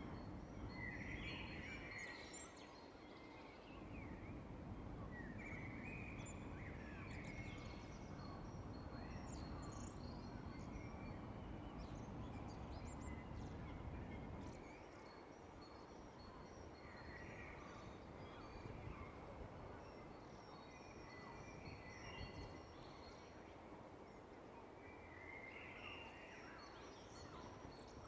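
Faint early-morning birdsong: several birds calling, with repeated short calls and thin high repeated notes, over a low background rumble that drops away about halfway through.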